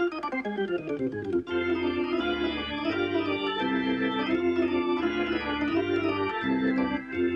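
Organ music: a quick falling run of notes in the first second and a half, then held chords over a bass line that steps between notes.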